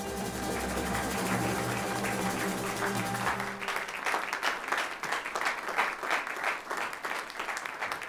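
Music plays and ends about three and a half seconds in, followed by a crowd applauding.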